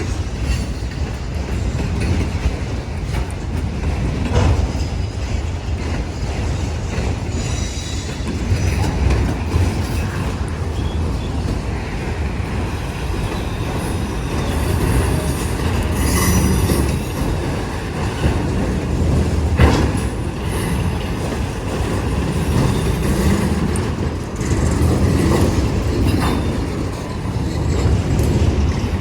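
Train cars rolling past on steel rail: a continuous heavy rumble of wheels on track, broken by a few sharp clicks and knocks, with faint high squeals now and then.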